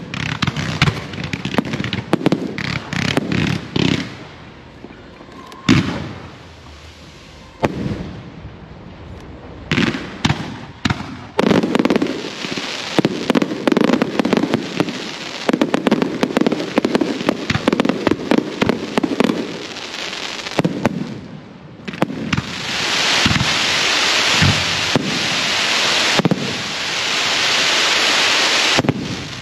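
Fireworks display: shells going off with a string of sharp bangs, a dense run of crackling from about twelve to twenty seconds in, then a long, loud crackling hiss over the last seven seconds that cuts off suddenly near the end.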